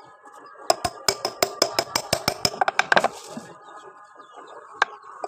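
Rapid hammer strikes on metal, a fast run of blows with a ringing note and then one more blow near the end, as a wheel bearing is driven into a motorcycle wheel hub.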